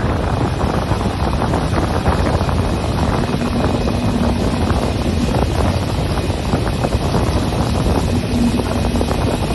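Steady wind noise buffeting the microphone over sea water rushing along a fishing boat's hull, with a constant low rumble underneath.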